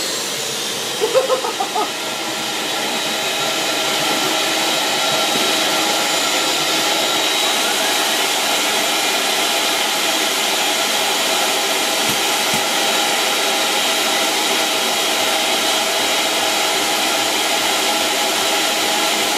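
Steady rush of air from a blower hose pushed into a turbocharger's compressor inlet, with a thin motor whine over it. A few short pitched blips come about a second in.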